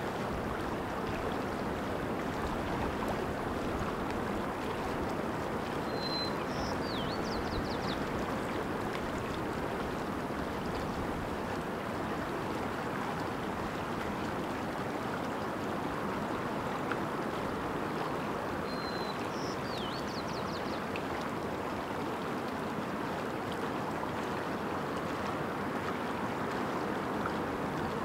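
Steady rush of a shallow stream running over rocks. A songbird sings the same short phrase twice, about six seconds in and again near twenty seconds: a brief whistle dipping into a quick run of high notes.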